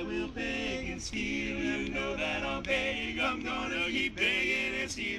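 Barbershop quartet of four men singing a cappella, several voices holding chords together in close harmony.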